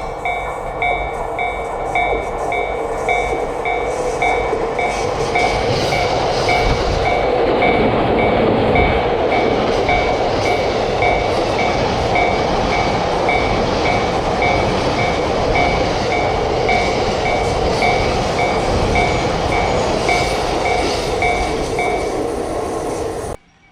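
Railroad crossing warning bell ringing 'kan kan' at about two strikes a second while a train runs past; the train's rushing noise swells about seven to nine seconds in. The bell stops a little before the end, and the sound then cuts off abruptly.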